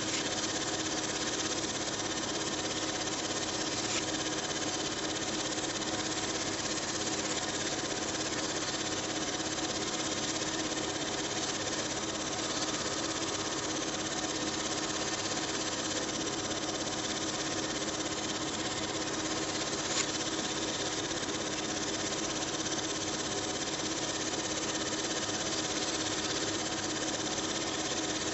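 Film projector running steadily, its motor and film-transport mechanism making a continuous mechanical whirr, with one sharper click about two-thirds of the way through.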